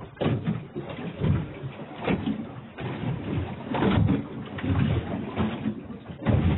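Irregular wet splashing and scraping as freshly caught squid squirm and squirt water on a wet plastic surface.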